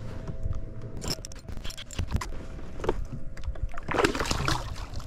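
Water splashing and scattered clattering knocks as a hooked bass is landed, with the loudest splash about four seconds in.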